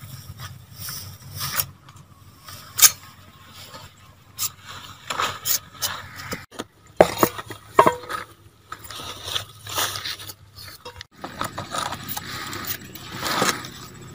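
Handling noises: banana leaves rustling and crinkling against woven bamboo trays, with scattered sharp clicks and taps.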